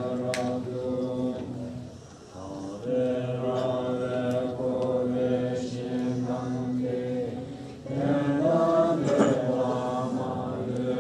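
A seated group chanting a Tibetan Buddhist prayer in unison, in long held notes. The chant dips briefly about two seconds in and grows fuller and louder from about eight seconds.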